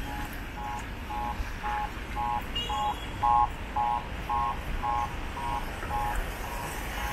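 Electronic beeper sounding about twice a second, each beep two steady tones together, growing louder to a peak about three seconds in and then fading away, over a steady background of street noise.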